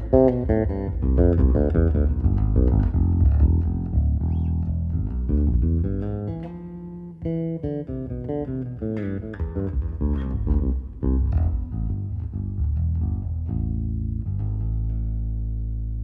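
Six-string electric bass playing a solo of quick plucked melodic notes, easing into long held notes near the end.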